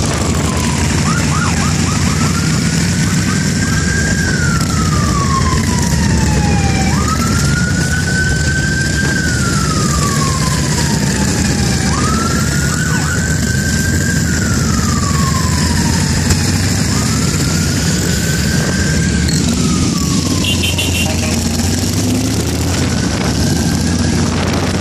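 A wailing siren sweeps up quickly and then falls slowly, about five times, one cycle every five seconds or so. Under it is the steady rumble of motorcycle engines.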